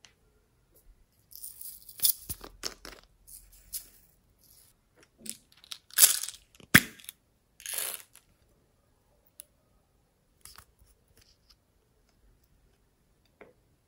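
Small plastic toy containers handled and twisted apart close up: rasping plastic scrapes and sharp plastic clicks, loudest about six to seven seconds in, then only a few faint ticks.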